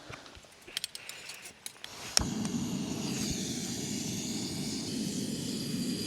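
Camping gas stove being lit: a few light clicks, then a sharp ignition click about two seconds in, and the burner runs with a steady hiss.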